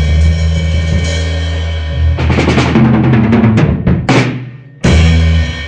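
Band with electric guitars and a drum kit holding a chord, then a fast drum fill of rapid strikes across the drums with cymbal crashes, ending on one final loud hit with the whole band: the closing flourish of the song.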